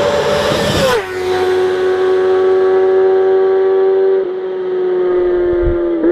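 Yamaha FZ-09's three-cylinder engine held at high revs. It drops quickly to a lower engine speed about a second in and then holds steady there.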